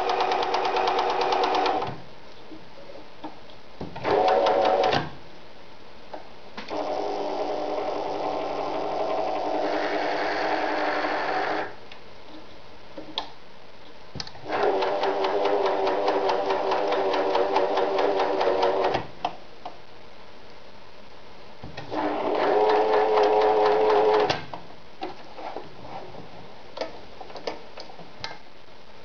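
Riccar 906E electronic sewing machine stitching cotton fabric in five separate runs of a few seconds each, stopping and starting between them, with a few light clicks in the pauses.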